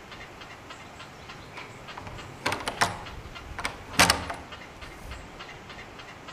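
Door rim lock and handle worked by hand to unlatch the door: a few sharp metallic clicks and clacks between about two and a half and four seconds in, the loudest near four seconds.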